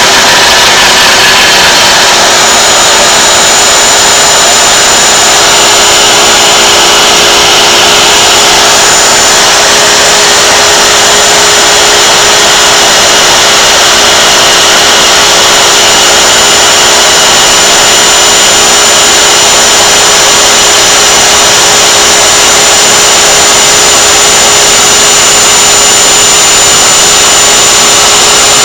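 Router spindle of a home-made CNC machine running steadily as it carves walnut: a loud, even mechanical noise with a constant high whine that sets in about two seconds in.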